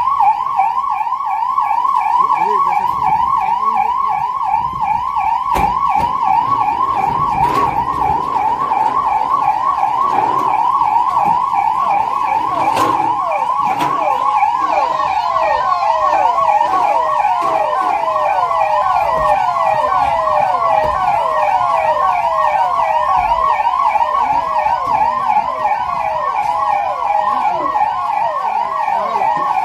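Electronic sirens in a fast warble, rising and falling in pitch a few times a second. Two sirens sound together slightly out of step, with a few brief knocks over them.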